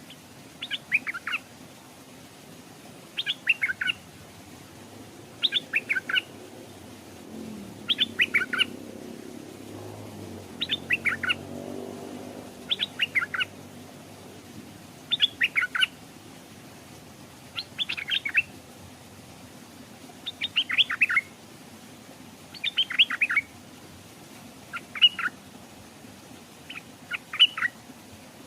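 Stripe-throated bulbul singing a short phrase of quick, falling notes, repeated about every two and a half seconds.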